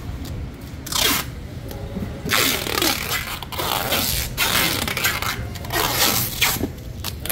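Clear packing tape pulled off its roll in several rasping pulls and pressed onto cardboard boxes to seal them.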